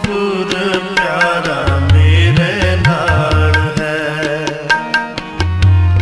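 Sikh devotional music (shabad kirtan): tabla playing under a wavering melodic line, with the bass drum's pitch bending upward on several strokes.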